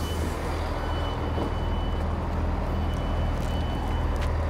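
Diesel multiple unit's engine idling while the train stands at a station, a steady low hum heard from inside the carriage. A faint high tone sounds on and off in two long stretches.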